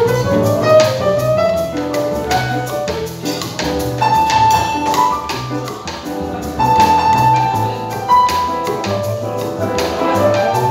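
Live jazz piano trio playing: grand piano melody and chords over plucked upright double bass, with cymbal and drum strokes keeping time.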